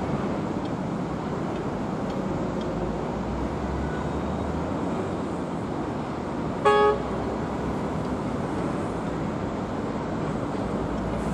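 Steady distant rush of rail and road traffic. About two-thirds of the way through, a horn gives one short toot.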